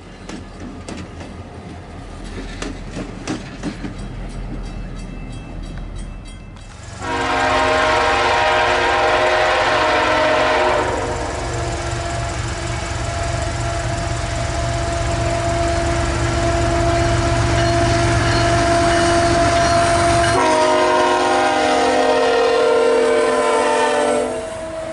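Model train wheels clicking rapidly over the track joints, then a loud recorded locomotive horn chord over a low engine rumble starting about seven seconds in. The horn changes to a single held note after a few seconds, and a second horn chord sounds in the last few seconds.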